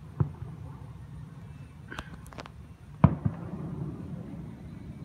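Aerial fireworks bursting in the distance: a bang just after the start, a sharper crack about two seconds in, then the loudest boom about three seconds in with a smaller one right after.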